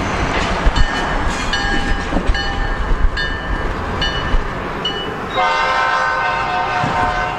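Freight locomotive air horn on an EMD SD40-2 blown in an unusual pattern: a quick run of about six short toots, then one long blast of about two seconds that stops near the end.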